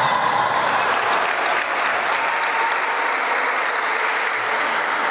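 Spectators applauding, a steady wash of clapping.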